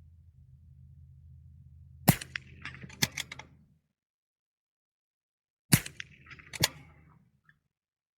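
.22 rimfire bolt-action rifle fired twice, about three and a half seconds apart. Each shot is followed just under a second later by a second sharp crack from the bullet striking a steel target, with smaller clicks in between.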